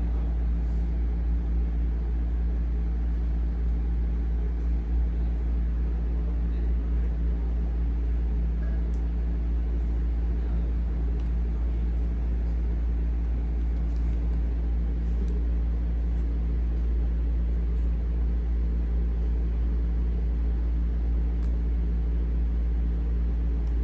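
A steady low mechanical hum, with a few fixed tones above a deep rumble, holding an even level throughout.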